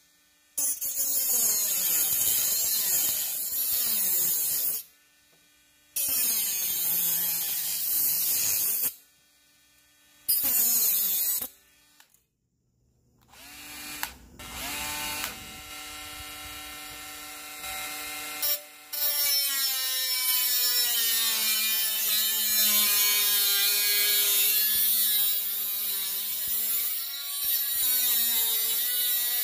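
Bosch GWS 12V-76 12-volt cordless mini angle grinder running in several short bursts with brief stops between them, its motor pitch dipping and recovering. A quieter, steadier stretch follows, then a long run over the last third in which the pitch keeps wavering.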